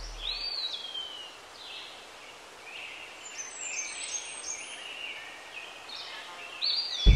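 Wild birds singing over a faint steady outdoor hiss: a whistled note gliding downward about half a second in, then a series of short, clear chirps and whistles from about halfway on.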